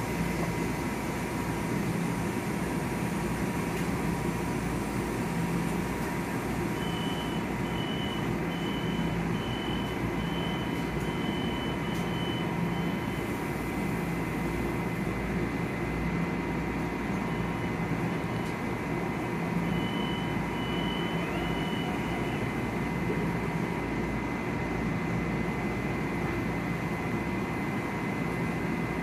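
Steady machinery hum with a pulsing low drone and a steady high whine. About seven seconds in, and again near the middle, come runs of short high beeps a little under a second apart.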